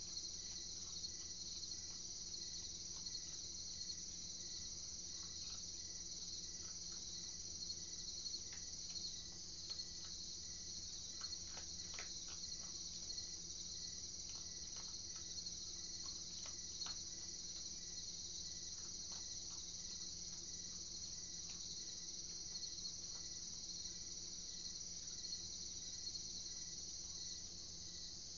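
Steady high trilling chorus of night insects, with scattered faint clicks around the middle from an opossum eating dry kibble.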